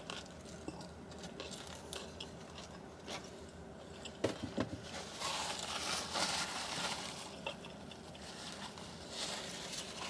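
Close-up eating sounds of biting into and chewing a juicy cheeseburger: scattered small wet clicks and squishes, with a few louder knocks about four seconds in.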